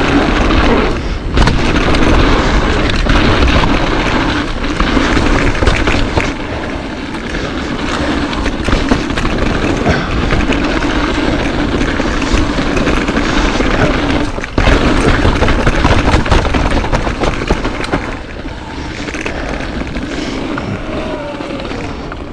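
Mountain bike riding down a dirt trail: wind rushing over the microphone, tyres rolling on the trail, and the bike knocking and rattling over bumps.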